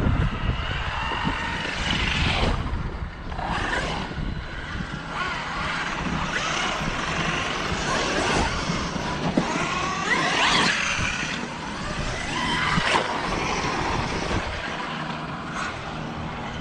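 Losi Super Baja Rey 1/6-scale electric RC truck driving, its brushless motor whining up and down in pitch several times as it accelerates and slows.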